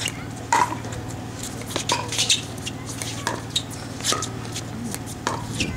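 Pickleball rally: a run of about ten sharp pops as paddles strike the plastic ball and the ball bounces on the hard court, coming irregularly every half second to a second.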